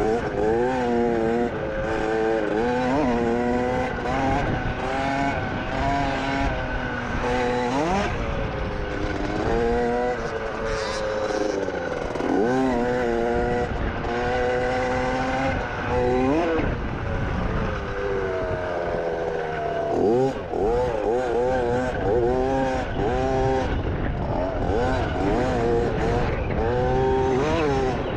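Dirt bike engine being ridden, its pitch rising and falling over and over as the throttle is opened and closed.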